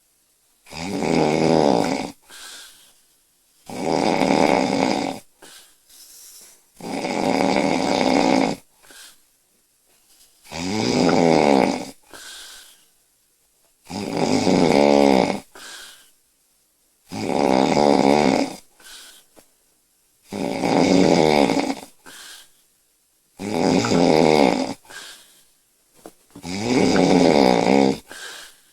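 A sleeping woman snoring loudly and regularly: a long, pitched snore about every three seconds, nine in all, with softer breathing between them.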